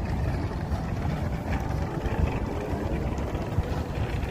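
Steady low rumble of outdoor street noise, wind buffeting the microphone with traffic underneath.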